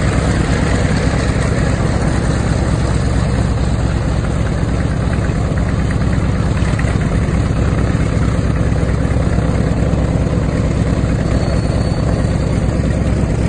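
A-1 Skyraider's Wright R-3350 18-cylinder radial engine idling with the propeller turning. The sound is loud and steady throughout.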